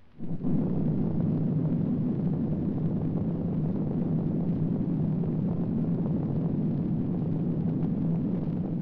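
Sound effect of a nuclear explosion: a low, steady roar that starts abruptly and holds level, beginning to die away near the end.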